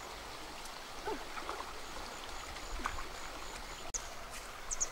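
Steady flowing river water, with a few faint short chirps over it. The sound drops out for an instant about four seconds in.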